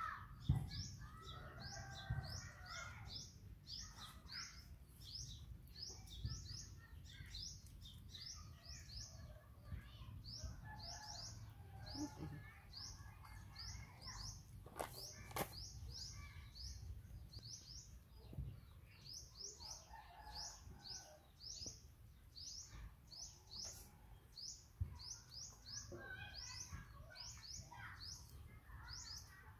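A bird chirping repeatedly, a short high note about three times a second with a few brief breaks, over fainter bird calls in the background.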